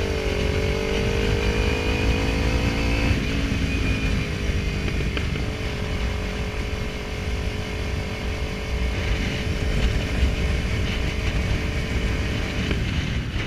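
Kawasaki Ninja 300's parallel-twin engine running under way. Its note drops sharply at a gear change about three seconds in, then holds steady, over a heavy low rumble.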